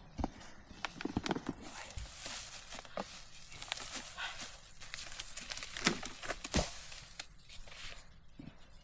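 Irregular knocks and clicks over a soft rustling, with two louder knocks about six and six and a half seconds in.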